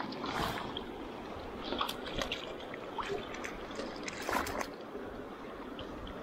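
River water rushing over riffles, with several short splashes and sloshes of water close by; the loudest comes about four seconds in.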